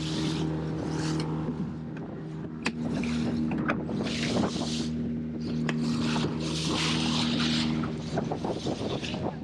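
Fishing boat's engine running steadily under way, with repeated bursts of spray and water slapping against the hull and a few sharp knocks.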